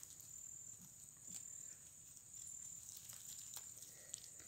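Faint, steady, high-pitched insect trill, with a few soft clicks and rustles of leaves.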